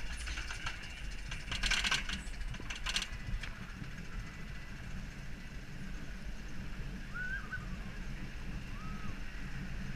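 Roller coaster train being hauled up its chain lift hill: the lift mechanism runs with a steady low rumble, with bursts of mechanical clatter in the first three seconds that then settle into a smoother running sound.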